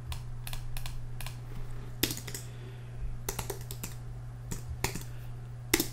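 Typing on a computer keyboard: a run of irregular keystroke clicks, over a steady low hum.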